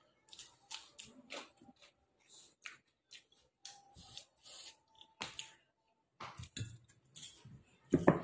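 A person chewing biryani close to the microphone: a string of short, wet mouth clicks and smacks at an uneven pace, with a louder, lower sound right at the end.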